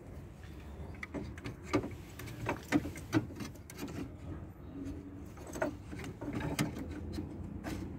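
Irregular light clicks and knocks of a plastic diesel fuel filter housing and its fuel-line fittings being handled and fitted into place in an engine bay.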